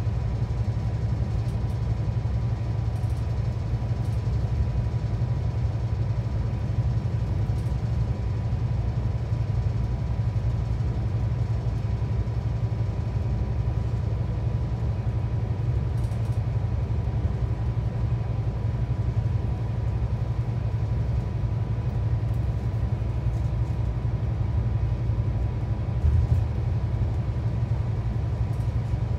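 Steady low drone of a Scania K360 coach's nine-litre five-cylinder diesel and its road noise, heard from inside the passenger cabin on the move, with a faint steady whine. A couple of louder knocks come near the end.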